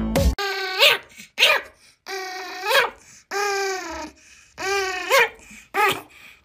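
Pomeranian making a series of high-pitched whining growls over a bone, each call lasting up to about a second. Several calls end in a quick rise in pitch.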